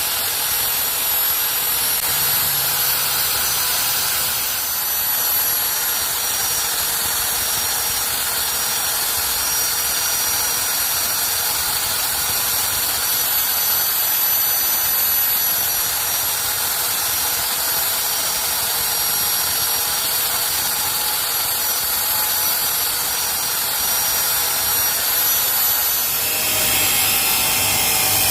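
Power tool's electric motor running steadily with a high whine; the sound changes near the end.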